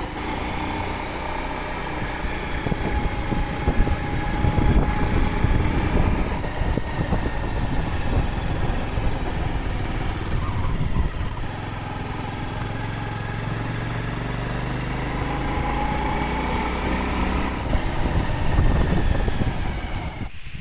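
Small motorbike engine running while climbing a hill road, its pitch rising and falling with the throttle, over a steady rumble of wind on the microphone.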